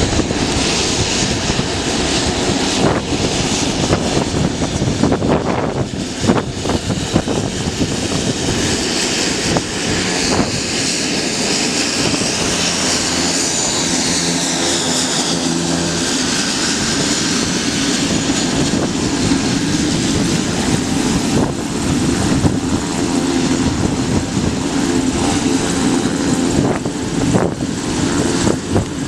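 Pilatus PC-12's single Pratt & Whitney PT6A turboprop running at taxi power: a steady propeller drone under a high turbine whine, which rises and falls in pitch around the middle.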